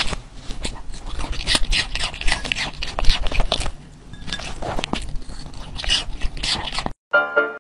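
A small poodle crunching and chewing crisp pieces of fruit, in several bursts of crunches with short pauses between them. Piano music starts near the end.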